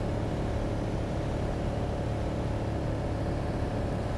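Cessna 182 single-engine light aircraft in flight: its piston engine and propeller drone steadily, heard from inside the cabin.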